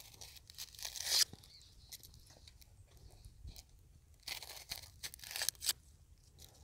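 A small knife peeling the dry, papery skin off a red onion: faint crackling, tearing strokes, with one about a second in and a cluster of several around four to five and a half seconds.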